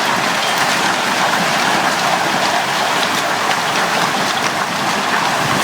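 A heavy hailstorm: a dense, loud, steady downpour of rain with a constant patter of sharp hailstone hits.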